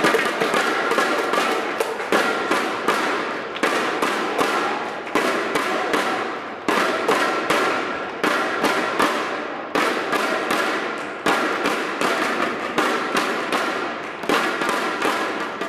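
Ballpark music with a steady, echoing percussive beat.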